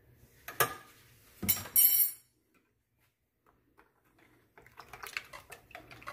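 A metal spoon clinking sharply against a glass measuring jug, three times in the first two seconds, as cornstarch is tipped into the sauce. From about four and a half seconds a quick run of light ticks follows as the spoon stirs the starch into the orange-juice sauce.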